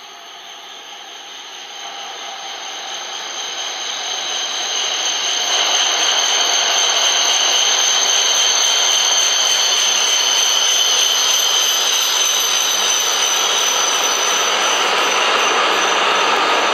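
A ten-car H5 series Shinkansen train arriving at the platform. It grows steadily louder over the first six seconds as it approaches, then gives a steady rush as the cars glide past close by, with a high-pitched whine held throughout.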